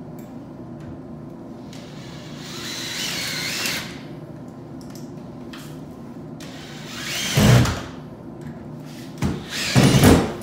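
Cordless drill driving screws to mount a wall dispenser, run in short bursts: a softer rising run about two and a half seconds in, a loud burst a little after seven seconds, and two more near the end.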